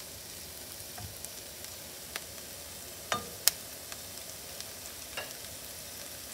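Chopped kale and scallions sizzling in oil in a sauté pan, stirred with a wooden spatula, a steady hiss with a few sharp clicks, the loudest about three and a half seconds in.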